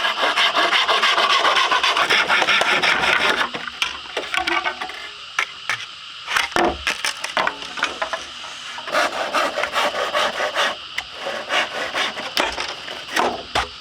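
Hand-tool work on wood: about three seconds of steady, dense rasping like sawing, then a run of sharper separate knocks and scrapes.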